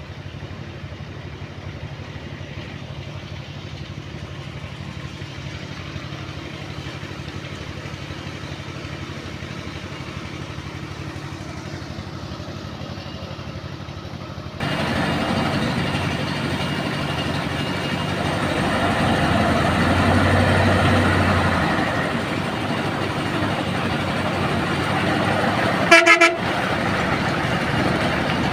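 A heavy truck's diesel engine runs steadily, faint at first and louder from about halfway, swelling briefly. Near the end a vehicle horn gives a short double toot, the loudest sound here.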